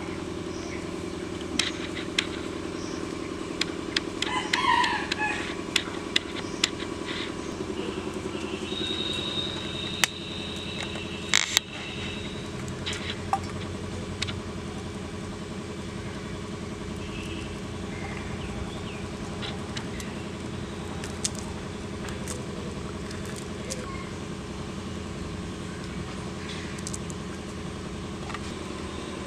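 A steady, low motor hum, like a distant engine running. Short chicken calls come about four seconds in, and scattered light clicks run through it.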